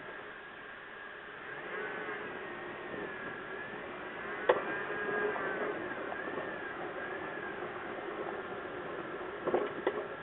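Lifted second-generation Toyota Tacoma with Old Man Emu coils and aftermarket upper control arms: a sharp pop about four and a half seconds in and two or three more near the end, over steady vehicle noise and wavering high tones. The pops are the popping noise that the owner is chasing in the lifted front suspension.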